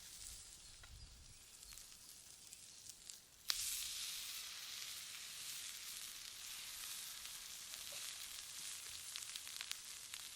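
Steak sizzling on a hot stone. About a third of the way in there is a sharp click and the sizzle suddenly gets much louder, then stays steady.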